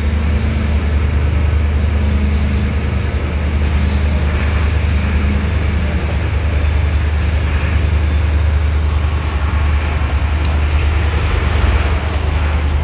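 Forklift engine running steadily with a low, even drone as the forklift lifts a pallet jack on its forks.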